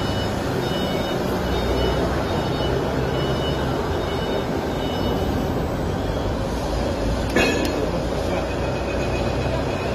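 Uncoiler's electric motor drive running steadily as the unloaded expanding mandrel turns, with one sharp knock about seven seconds in.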